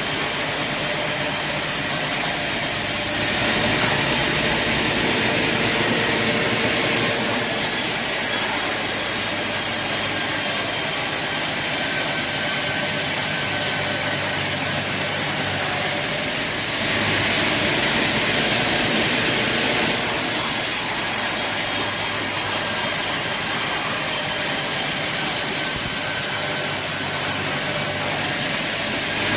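Sawmill saw running and cutting through wood, a loud steady sawing hiss with machinery running underneath. Its character shifts abruptly every few seconds.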